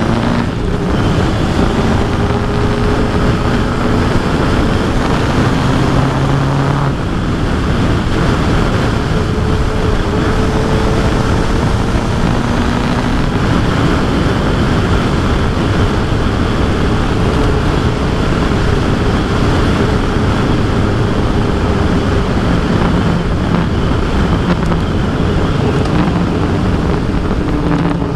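Heavy wind rush over the microphone while riding a Kawasaki Versys 1000 SE motorcycle, its inline-four engine running at fairly steady revs underneath. The engine pitch shifts near the start and again near the end.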